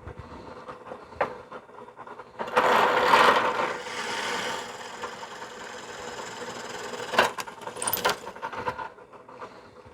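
Drill press running with a steady motor hum. Its bit cuts into a knife handle scale with a loud rough grinding that starts about two and a half seconds in and eases off after about two seconds, then carries on more quietly. A few sharp knocks come near the end.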